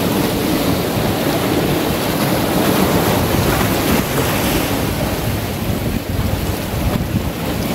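Sea surf washing over rocks along the shore, a steady rushing noise with some wind.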